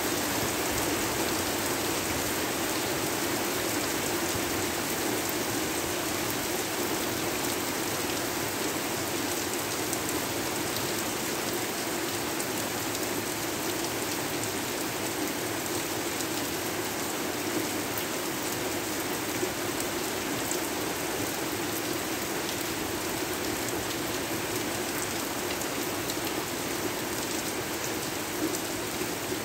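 Steady rain falling, a continuous even hiss with scattered individual drops ticking on a surface.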